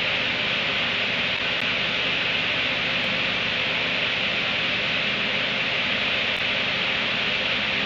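Steady loud hiss, strongest in the upper-middle range, unchanging, with no distinct events standing out.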